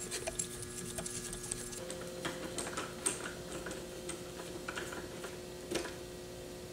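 Light, irregular clicks and taps of small plastic and metal parts being handled on the front axle of a 1/10 scale RC truck, around the C-hub and steering knuckle. A few sharper clicks stand out, about two, three and nearly six seconds in.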